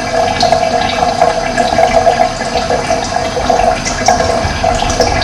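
Running water flowing steadily, with a few brief high bird chirps over it.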